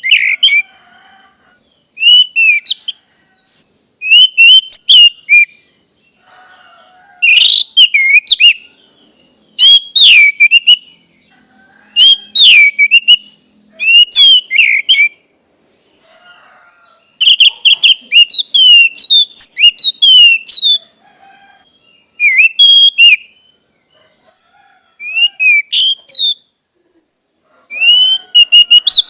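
Orange-headed thrush singing: loud, quick phrases of sliding whistles, delivered in clusters with short pauses between them. A steady high hiss runs beneath the song and stops suddenly about three-quarters of the way through.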